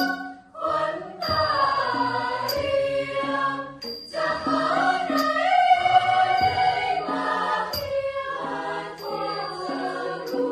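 Choir singing sustained notes in harmony during a rehearsal, phrase by phrase, with brief breaks between phrases.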